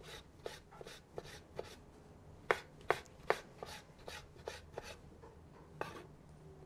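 Kitchen knife dicing tomatoes on a wooden cutting board: a run of sharp knocks, about three a second, the loudest a little under halfway through and thinning out near the end.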